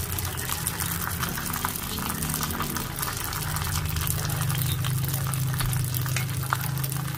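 Gyoza dumplings sizzling and crackling in hot oil in a frying pan, their bottoms pan-frying to a golden crust. A low steady hum runs underneath, stronger from about three seconds in.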